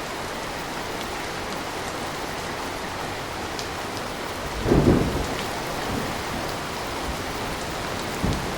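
Steady rain, with a short, low boom of thunder about halfway through, which is the loudest moment, and a smaller low bump near the end.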